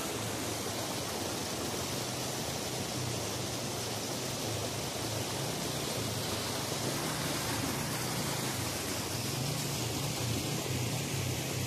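Rushing mountain stream: fast water pouring over rocks and small falls, a steady even rush with a low rumble underneath.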